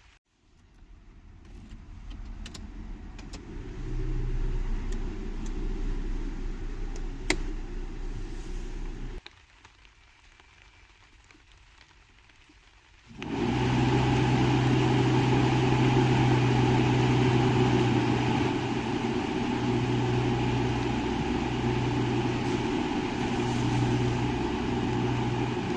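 Toyota MR2 SW20 running, a steady mechanical sound that stops for about four seconds in the middle. It then comes back louder and steady with a low hum, and near the end the hum pulses on and off.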